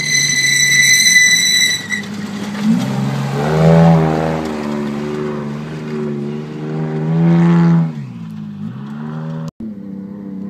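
Off-road race truck engine at full race pace as the truck passes close by, revving hard and easing off twice, then dropping in pitch as it moves away. A high steady whine sounds over the first two seconds, and a second truck's engine takes over near the end.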